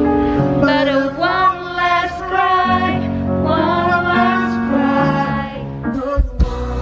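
Live band music with a voice singing a slow melody in long wavering notes over held bass notes, heard from within the audience. About six seconds in the music breaks off briefly with a couple of low thumps, then carries on.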